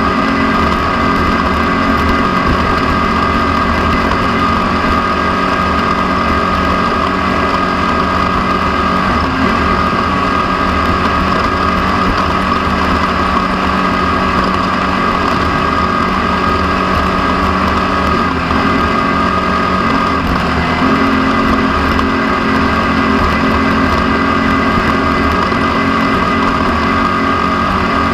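Off-road race car's engine running hard and steadily, heard from onboard the car. Its lower tones shift up slightly about two-thirds of the way in.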